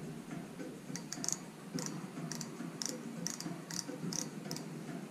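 An outside micrometer clicking lightly and irregularly, about a dozen short sharp clicks, starting about a second in. Its thimble is being turned down onto a crankshaft journal until it stops, for a journal-diameter measurement.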